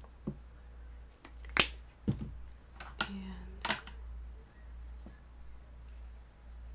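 A few sharp clicks and taps of small objects handled on a work table, the loudest about one and a half seconds in.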